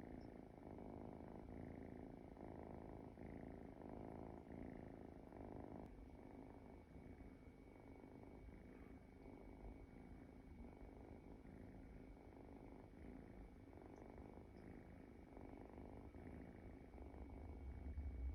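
A sleeping munchkin kitten snoring quietly, a soft rhythmic sound that rises and falls with each breath. A low rumble comes in near the end.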